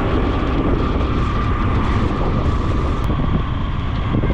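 Steady rush of wind on the microphone mixed with engine and road noise from a motor scooter being ridden.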